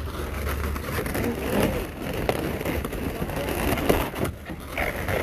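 Latex balloons rubbing and squeaking under hands as a twisted red balloon collar is worked onto a balloon sculpture, with scattered small clicks over a steady low rumble.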